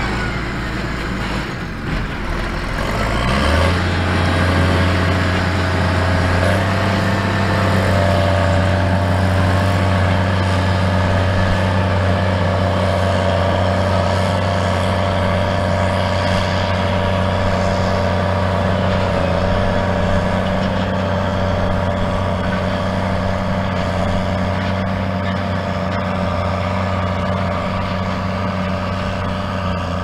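New Holland T7040 tractor's six-cylinder diesel running hard under load, towing a forage wagon that is picking up grass. The revs climb about three seconds in and then hold steady.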